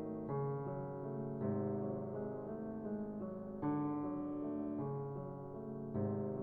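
Background piano music, soft sustained chords changing about every one to two seconds.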